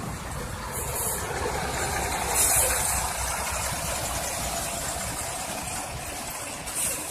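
Bus engine running low and steady after its horn has stopped, with three short bursts of hiss: about a second in, around two and a half seconds in, and near the end.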